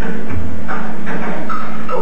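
Soundtrack music of an animatronic stage show playing over theater speakers, with a short low thump about half a second in.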